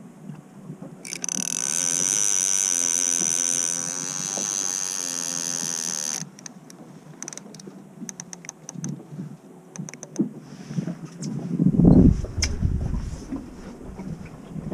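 Conventional big-game fishing reel running with a steady mechanical buzz for about five seconds, then a few scattered clicks. Heavy low bumps follow near the end.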